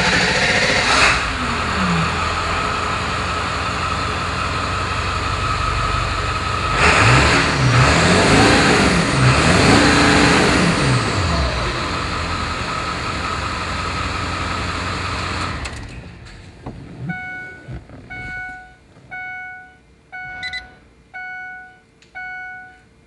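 Ford Super Duty's 7.3-litre Power Stroke turbodiesel V8 running just after start-up, revved up and down a few times about halfway through, then switched off. After shut-off a short electronic chime repeats about once a second, six times.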